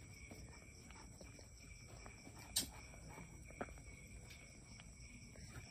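Faint, close sounds of a mother cat licking her newborn kitten, with two short sharp clicks about a second apart near the middle.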